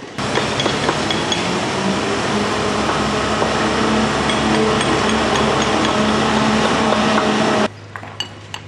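Loud steady machine noise with a low hum, which cuts off abruptly near the end. After it come sharp clinks of hammers tapping granite paving setts into place.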